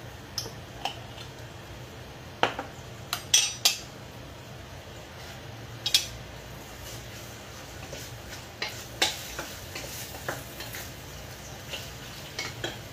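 Clinks and knocks of cookware being handled, a wooden spoon working chicken pieces in a pot among them. The loudest knocks come in a cluster about two and a half to four seconds in and once about six seconds in, over a steady low hum.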